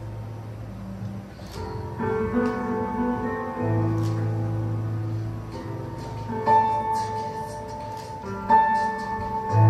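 Live improvised music on keyboard and synthesizers: a deep sustained bass note under held chords, the chords changing every second or two.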